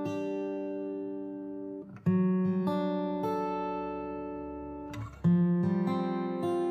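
Background music of plucked-string chords that ring on. Fresh chords are struck about two seconds in and again about five seconds in, with lighter picked notes between.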